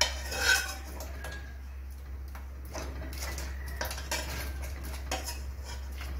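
A metal utensil scraping and clinking against an aluminium pot as diced sweet potato is scraped out into a larger pot. The loudest clank comes about half a second in, over a steady low hum.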